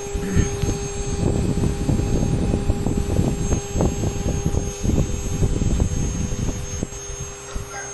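CNC router spindle running with a steady high whine while its end mill cuts a metal plate, giving rough, irregular cutting noise under the whine. The cutting noise eases off about seven seconds in, leaving mostly the whine.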